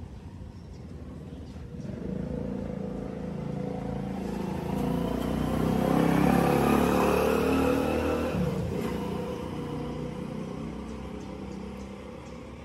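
A motor vehicle passing by: its engine swells over several seconds, is loudest around the middle, then fades away.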